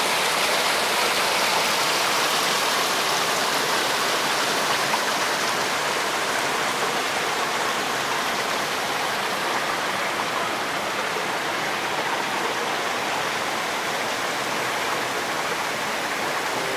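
Creek water rushing steadily over boulders, a little quieter toward the end.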